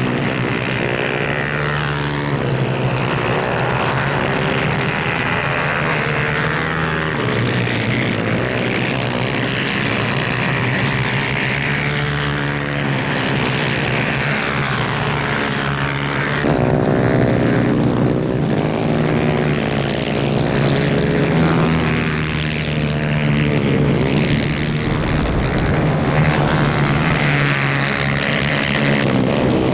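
Several 250cc two-stroke superkart engines racing, their pitch rising and falling over one another as the karts accelerate and brake. They get louder a little past halfway.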